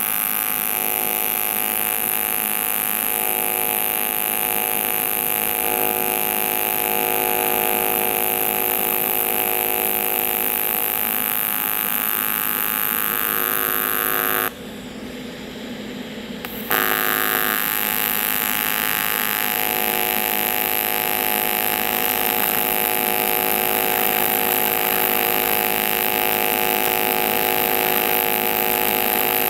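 Everlast 200DV AC TIG arc on cast aluminium, buzzing steadily with many even tones. About halfway through it stops for two seconds and then strikes again. The machine is set to a lowered AC frequency with about 40% cleaning action, to tack the crack without preheat.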